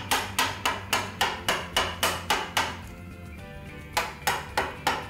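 Wooden mallet driving a wood-carving chisel into a log: regular sharp knocks, about three or four a second, which stop for about a second midway and then start again.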